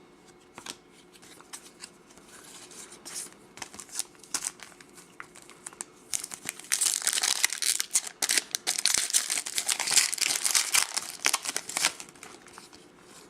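Foil wrapper of a Topps Chrome baseball card pack being crinkled and torn open: a few light clicks at first, then dense crinkling from about halfway through, easing off near the end.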